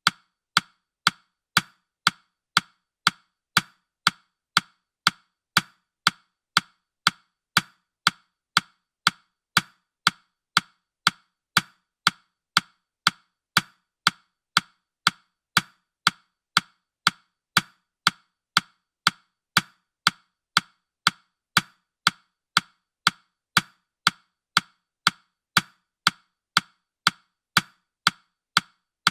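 Countdown timer's ticking sound effect: short, sharp, woody clock-like ticks, evenly spaced at about two a second.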